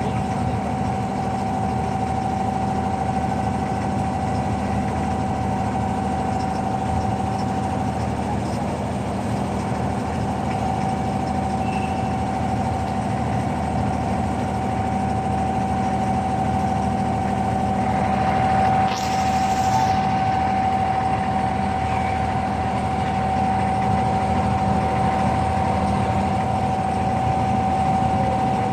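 Wooden abra water taxi's inboard diesel engine running steadily under way: a continuous drone with a steady whine over it. About two-thirds of the way through there is a brief rush of noise lasting about a second.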